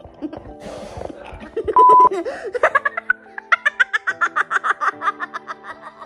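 Background music, with a short loud steady beep about two seconds in, then a few seconds of rapid, high-pitched laughter.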